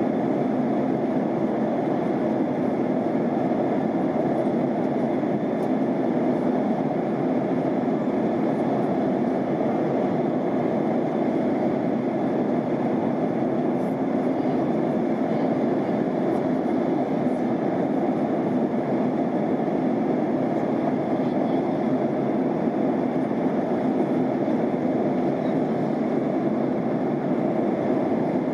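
Steady airliner cabin noise in flight: an even rush of airflow and engine noise heard from inside the cabin, with no change in level.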